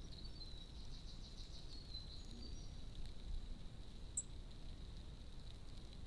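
Small songbirds chirping, with a quick trill in the first couple of seconds and one short, very high chirp about four seconds in. A steady faint high tone and a low rumble run underneath.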